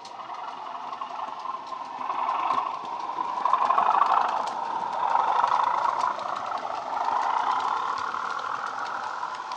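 Sound decoder in a Bachmann OO-gauge Class 37 model playing a Legomanbiffo recording of the Class 37's English Electric diesel engine through the model's small built-in speakers. The engine sound swells to its loudest about four seconds in as the locomotive passes close by, then eases off as it moves away.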